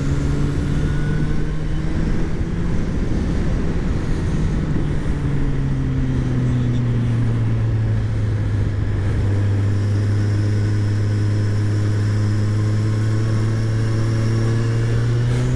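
Kawasaki Z1000's inline-four engine running under way at fairly steady revs. The revs ease down a little about a third of the way in, then hold steady.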